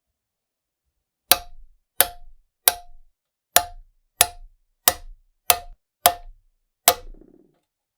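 Nine sharp hammer taps on metal, evenly paced about one and a half a second, each with a short ring, and a brief rattle after the last.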